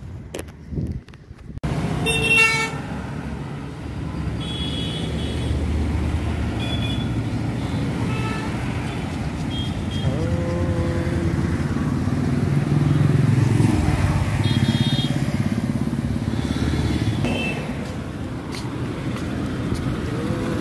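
Busy road traffic: cars, auto-rickshaws and motorcycles passing with a steady engine and tyre rumble, and short horn toots every few seconds. The first couple of seconds are quieter, with a few clicks, before the traffic noise starts.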